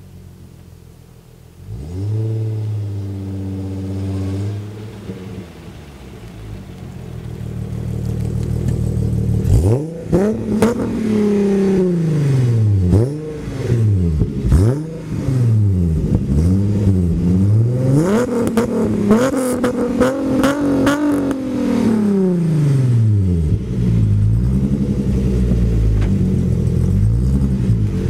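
Swapped 2.8-litre VR6 engine of a Mk1 VW Cabriolet, running through an OBX header and Borla exhaust. It starts as a low steady note, then builds up, and from about a third of the way in it is revved up and down many times, the pitch rising and falling again and again. Near the end it settles back to a steadier low drone.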